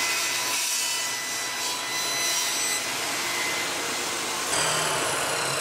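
Table saw cutting through a pine board: the steady whine and hiss of the blade working through the wood, with a change in the sound about four and a half seconds in.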